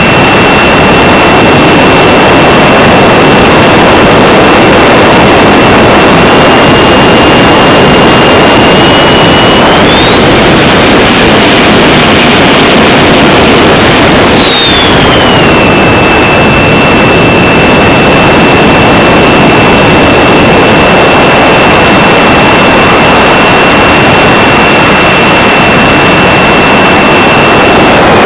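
Electric ducted fan of an RC jet (64 mm Mercury EDF) whining over a loud, steady rush of air during flight. The whine climbs in pitch about ten seconds in as the throttle is opened, holds there for about four seconds, then glides back down and stays steady.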